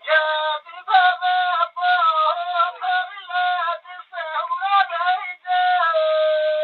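Male folk singer singing a Bagheli birha in a high voice: several short sung phrases with bending pitch, then a long held note starting near the end.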